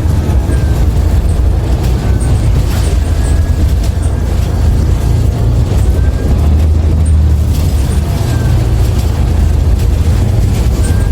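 Interior sound of a 2016 New Flyer XDE60 hybrid articulated bus under way: a loud, steady low drone from its diesel engine and Allison hybrid drivetrain, swelling about six seconds in, with light body rattles. The motor and transmission sound weird and off to the rider compared with other Allison-equipped hybrid artics.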